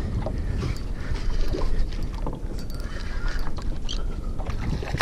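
Steady wind noise on the microphone and water lapping against the hull of a small open fishing boat, with a few faint clicks.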